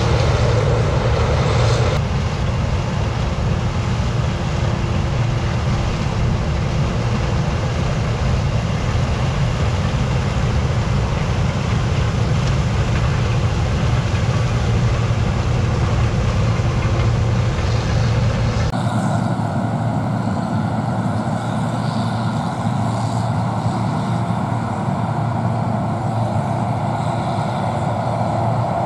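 Gleaner combine running steadily under load while harvesting corn, a dense mechanical noise over a deep rumble. About two-thirds of the way through, the sound changes abruptly: the deepest rumble drops away and the hiss thins.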